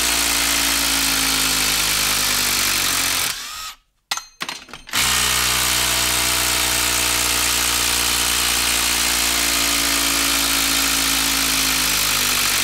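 Hilti 12V brushless impact driver hammering steadily under load while running a long screw out of a wooden stump. It cuts out about three and a half seconds in, restarts about a second and a half later, and stops near the end.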